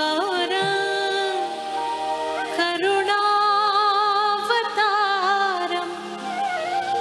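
A woman singing a slow Sanskrit hymn to Shiva into a microphone. She holds long notes with vibrato and slides between them, over a steady drone accompaniment.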